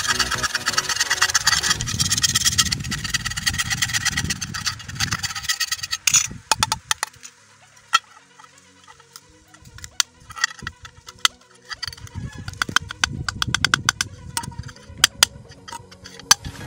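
Utility knife blade scraping and grinding into the hole of a rusty tin lid, a rough rasping with squealing tones that stops about six seconds in. Scattered sharp clicks and taps follow as the lid is handled.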